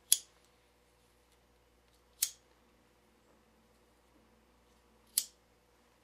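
Hand-held cigarette lighter struck three times, about two and three seconds apart, each strike a short sharp click, while a cigarette is being lit.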